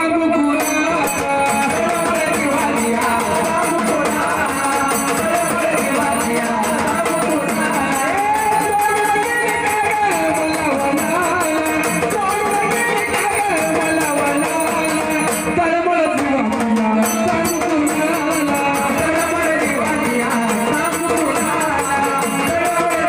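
Marathi devotional folk song in the waghya-murali / jagran gondhal style: a voice singing over instruments and percussion with a jingling rattle, playing continuously.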